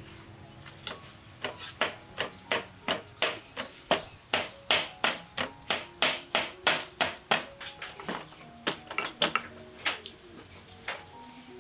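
Kitchen knife chopping raw chicken meat on a wooden cutting board, a steady run of about three knocks a second that grows louder through the middle, then thins out near the end.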